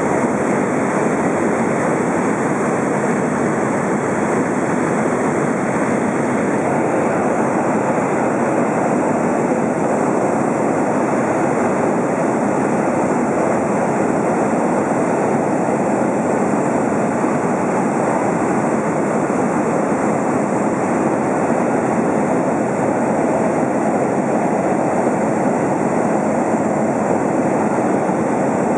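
Steady drone of a Cessna's engine, propeller and rushing air, heard from inside the cabin in flight. It stays even throughout, with no change in power.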